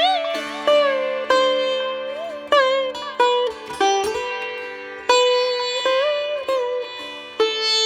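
Background music: a plucked-string melody with sliding bends into the notes, over a steady held drone.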